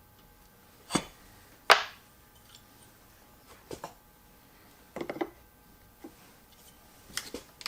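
Hard objects being handled and set down on a workbench while a plane blade is readied for sharpening: two sharp knocks about a second in, then several lighter clicks and taps.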